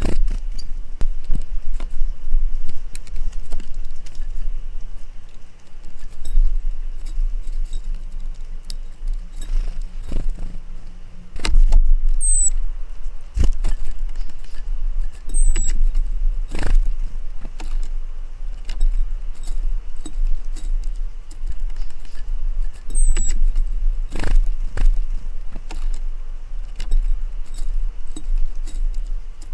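A small wild bird gives three short, high, thin calls that slur slightly downward, spaced several seconds apart. Under them runs a steady deep rumble, and many sharp clicks and ticks are scattered throughout.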